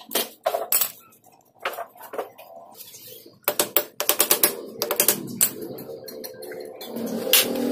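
Honda Wave 125 cylinder head clicking and knocking, metal on metal, as it is worked loose and lifted off the engine by hand. A few separate clicks come first, then a quick rattling run of clicks a few seconds in, and one more sharp click near the end.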